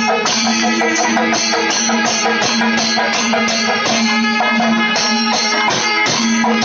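Kerala temple ensemble playing: drums and cymbals struck in a fast, dense rhythm over a held note from curved kombu horns, which breaks off briefly now and then.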